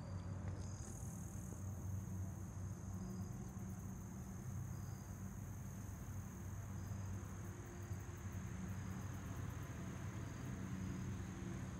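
Insects, crickets by their sound, trilling steadily and high-pitched outdoors, with short chirps repeating every second or two and a steady low hum underneath.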